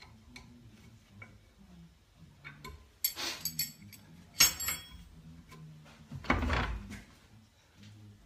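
Steel rods knocking and clinking against a cast-iron bench vise as they are handled and clamped: a few sharp metallic clicks about three seconds in, a single ringing knock a moment later, and a longer clattering scrape a little past six seconds.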